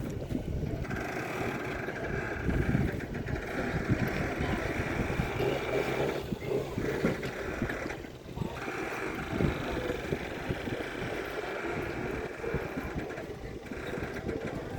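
An engine running steadily, with a low rumble and a higher hum that briefly drops away a few times.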